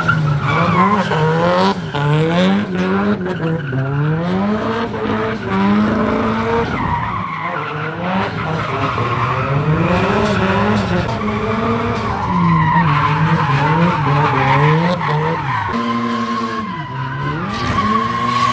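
Nissan Silvia S14 drift car sliding through a circle: its engine revs rise and fall over and over over tyres squealing and skidding. Near the end the revs dip sharply, then hold steady.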